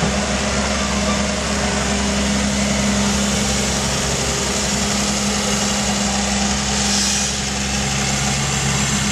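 Diesel engine of a Doosan amphibious excavator running steadily, with a brief hiss about seven seconds in.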